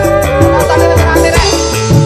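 Dangdut koplo band music playing an instrumental passage, with a steady quick percussion beat over bass and melody and no singing.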